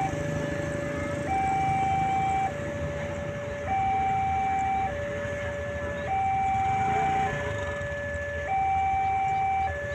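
Railway level-crossing warning siren sounding a two-tone hi-lo alarm. It alternates between a lower and a higher tone about every 1.2 seconds, and the higher tone is louder.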